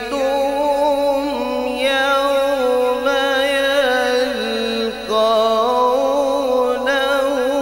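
A man reciting the Quran (tilawat) in a long, melodic, sung style into a microphone, holding drawn-out notes that step and waver in pitch, with a brief break about five seconds in.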